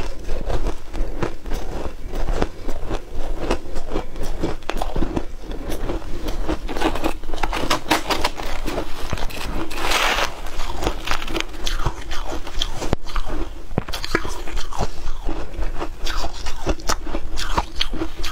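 Close-miked crunching and chewing of frosty ice: a dense, steady run of sharp crackling bites. About halfway through comes a longer scraping burst as the metal spoon digs into the tray of ice.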